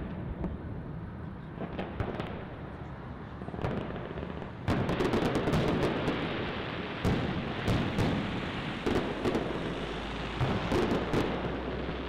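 Aerial fireworks display: shell bursts popping and banging over a low rumble. The bursts are fewer for the first four seconds or so, then come thick and loud from about five seconds in, with many sharp cracks.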